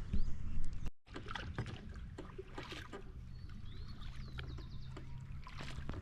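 Kayak paddle strokes: splashes and drips of water off the blade, with a few short bird chirps and a trill around the middle. The sound cuts out completely for a moment about a second in.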